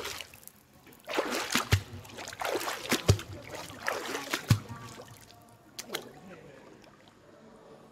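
Water splashing and sloshing in a hot spring pool, with several sharp knocks and indistinct voices in the first half, fading to quieter water near the end.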